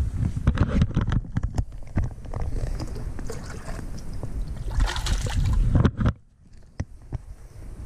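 Handling knocks and rubbing close to the microphone, with wind rumble, as a small spotted bass is released over the side of a bass boat with a light splash. The sound drops away abruptly about six seconds in.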